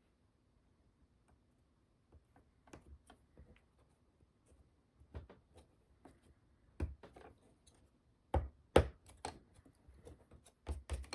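Light scattered clicks and taps of small model-kit parts being handled and fitted into a base on the workbench, with a pair of sharper knocks about eight and a half seconds in.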